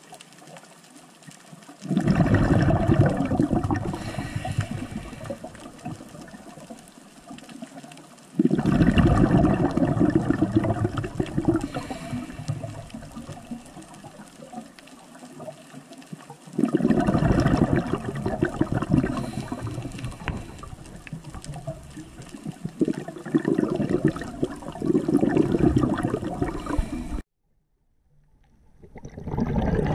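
Scuba diver's exhaled bubbles rushing from the regulator underwater, coming in bursts every six to eight seconds with the breaths. Each burst starts suddenly and fades over several seconds. The sound cuts out abruptly near the end and then returns.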